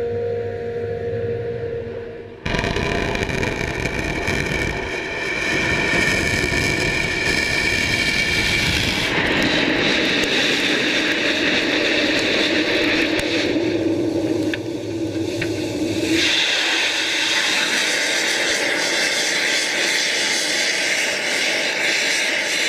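Falcon 9 first stage's Merlin engine thrust during its droneship landing burn: a steady roaring rush that jumps suddenly in loudness about two and a half seconds in. The low rumble drops away about sixteen seconds in, leaving a steady hiss.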